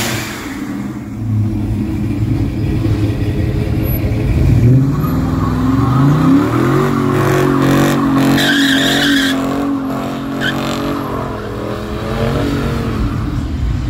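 Dodge Charger's engine revving up hard as it pulls away, its pitch climbing over a few seconds, then its rear tyres spinning in a burnout with a high tyre squeal about eight and a half seconds in, the engine held at high revs through the smoke.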